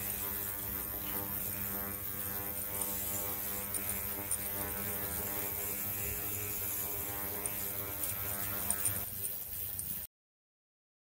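Steady electrical buzz with a mains hum from a powered jewellery bath, the ring hanging in its foaming solution. It cuts off abruptly about ten seconds in.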